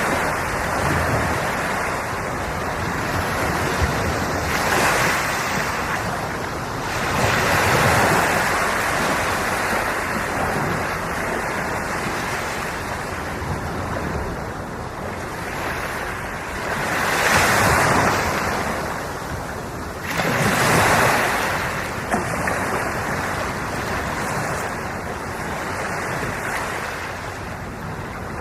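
Ocean waves breaking and washing on the shore, a steady surf hiss that swells with several louder breakers, with some wind on the microphone.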